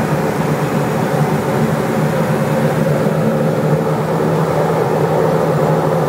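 Steady drone of a small propeller airliner's engines and propellers, heard inside the cabin as the plane rolls along the runway after landing, with a steady low hum and a higher tone over the rush of noise.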